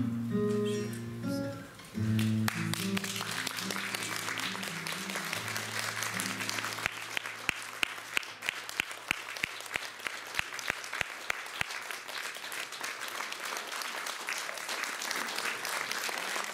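Audience applause starting about two seconds in over the last held notes of live music, which die away by about five seconds in. For several seconds in the middle the audience claps together in a steady rhythm, about three claps a second, then goes back to ordinary applause.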